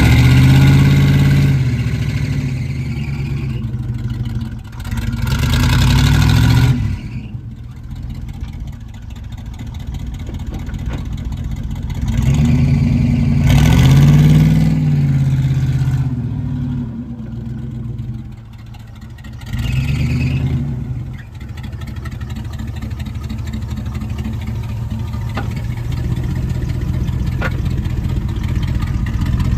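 Chevy C30 truck engine idling and being revved up and let back down about four times, each rev lasting a second or two.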